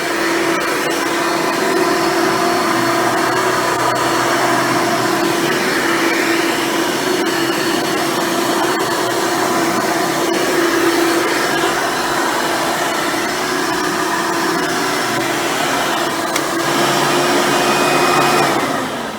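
Hoover Elite upright vacuum cleaner running steadily at full power. It is switched off near the end, and its motor winds down with a falling pitch.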